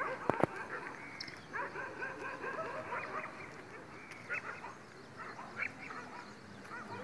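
Birds calling: many short, overlapping calls throughout, with two sharp clicks about a third of a second in.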